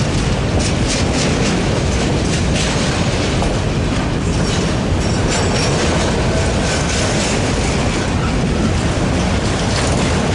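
Freight train of enclosed autorack cars rolling steadily past close by: a continuous loud rumble of steel wheels on rail with rapid clicking of the wheels over the track.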